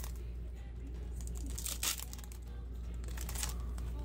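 Plastic wrapper of a Dragoborne trading card booster pack crinkling and tearing open, with a sharp rip about two seconds in and more rustling a second later as the cards come out.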